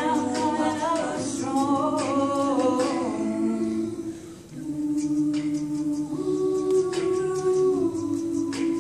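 Co-ed a cappella group singing in harmony. The voices finish a sung line in the first few seconds, then hold long sustained chords over a low bass part.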